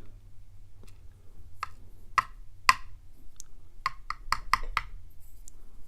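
Small metal padlock pins and springs clicking as they are tapped out of the lock body: a string of sharp, ringing clicks, with a quick run of about five clicks about four seconds in.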